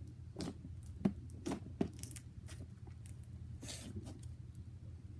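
Homemade slime being squeezed and kneaded by hand, giving a run of small sharp clicks and pops, then one longer rustling squish a little after three and a half seconds in.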